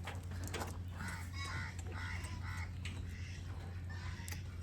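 Farm poultry calling in a string of short, quick repeated notes, over a steady low hum.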